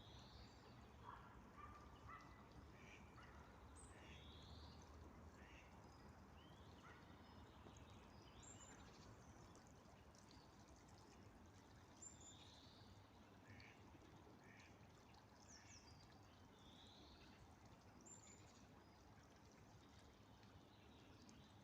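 Faint birdsong: several small birds chirping, one of them repeating a short rising call about every four seconds, over a low steady background rumble.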